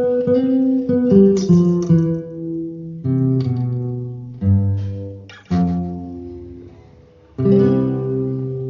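Solo guitar music: a slow closing passage of strummed and plucked chords, each left to ring and die away, with a last chord near the end that rings out and fades.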